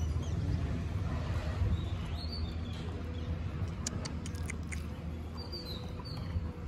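Outdoor ambience with a steady low rumble. Small birds give a few short, high, falling chirps, about two seconds in and twice near the end. A quick cluster of sharp clicks comes a little past the middle.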